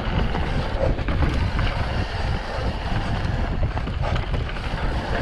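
Wind buffeting the microphone of a rider on a bicycle rolling down a dirt trail, with a steady low rumble from the tyres and many small knocks and rattles from the bike on the rough ground.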